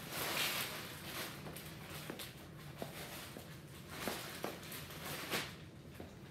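Footsteps of a person walking and turning in worn-down, run-over shoes: a handful of soft scuffing steps about a second apart, with a few faint clicks between them.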